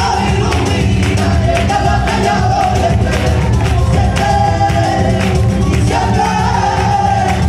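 Live group song: a singer over an ensemble, with the performers clapping their hands in a steady rhythm.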